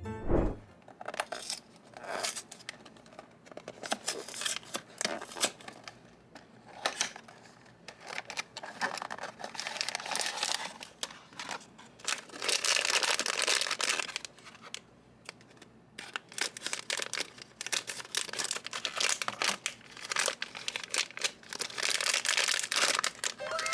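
Blind-box toy packaging being opened by hand: plastic and foil wrapping crinkling and tearing in irregular bursts, with a short knock right at the start.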